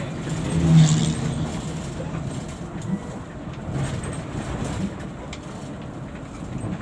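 Bus engine running with road noise, heard from inside the cabin while driving, with a brief louder surge about a second in.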